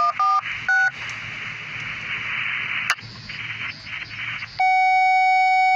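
Electronic radio tones: three short beeps of changing pitch, a stretch of hiss, then one long steady tone that cuts off sharply near the end.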